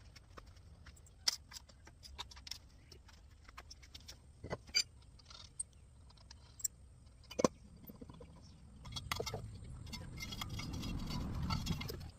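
Scattered metallic clinks and knocks of hand tools and parts being handled. In the last few seconds a low rumbling sound grows louder, then stops suddenly.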